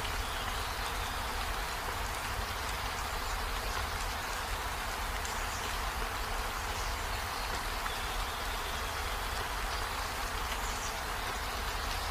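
Steady, even hiss of background noise with no distinct handling sounds standing out.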